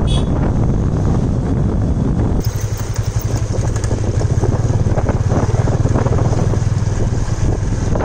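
Motorcycle engine running at riding speed on a dirt road, heard from the moving bike with wind rushing over the microphone; the engine's low steady hum comes through more clearly about two and a half seconds in.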